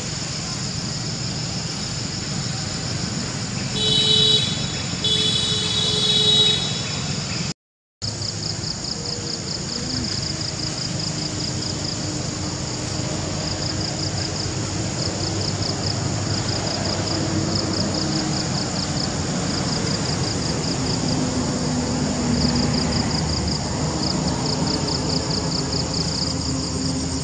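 Insects chirping in a steady high drone broken into quick even pulses, over a constant low rumble. A vehicle horn honks twice, about four and five seconds in, and the sound drops out for a moment near eight seconds.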